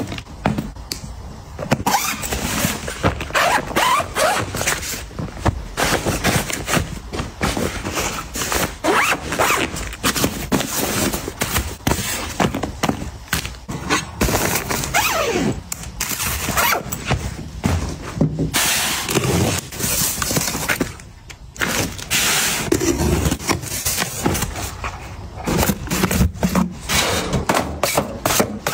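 Close-up handling sounds of household restocking: plastic bin liner rustling, plastic drink bottles set down on a wooden tabletop, and cardboard boxes placed into a metal-mesh drawer. These make a dense run of taps, knocks, scrapes and rustles with short squeaks.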